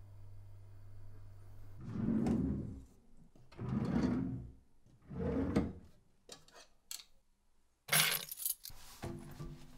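Drawers sliding open and shut three times, each a swelling rumble about a second long, then small clicks and rattles of things being rummaged and a sharper clatter about eight seconds in.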